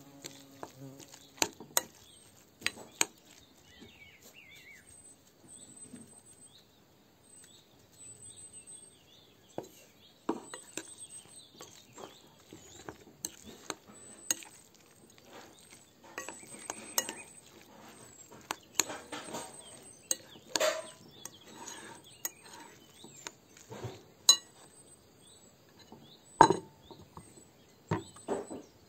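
Hands mixing raw ground-meat stuffing in a glass bowl, with irregular clinks and taps against the glass and a few louder knocks.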